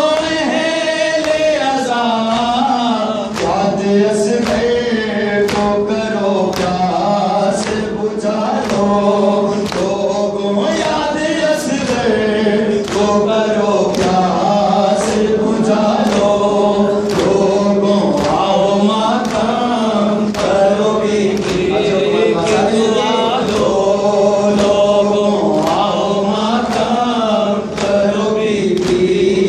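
Noha recitation: a man chanting a mournful lament into a microphone, with a group of men's voices joining in. Sharp hand strikes on the chest (matam) keep a steady beat of roughly one a second.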